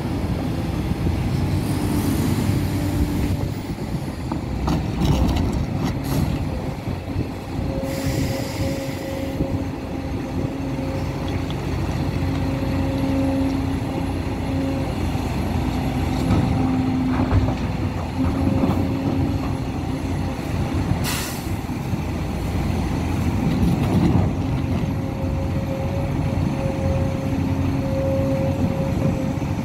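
Hidromek 500LC crawler excavator working: its diesel engine and hydraulics run under load with a steady drone while it loads rock and dirt into a dump truck. A few short hisses cut through the drone at intervals.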